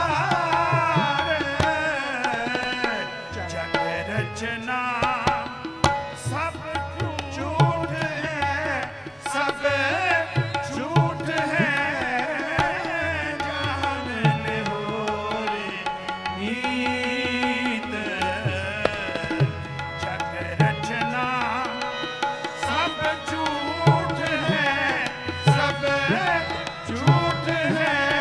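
Sikh shabad kirtan: a male voice sings a melodic line to harmonium, with tabla strokes keeping a steady rhythm underneath.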